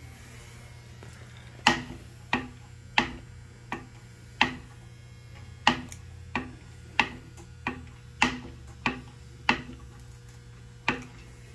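A series of sharp knocks, about one every two-thirds of a second, in runs broken by short pauses, each knock ringing briefly.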